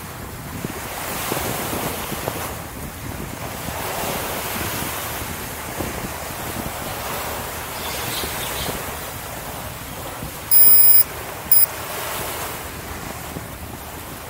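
Wind rushing over the microphone of a handlebar-mounted camera on a moving bicycle, swelling and easing every couple of seconds. Two thirds of the way through come two loud, high electronic beeps, the first about half a second long, the second short.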